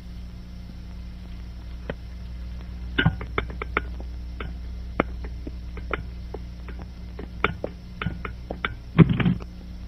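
Footsteps of several people clicking on a hard tiled floor, irregular and quick, over a steady low hum; a louder knock near the end.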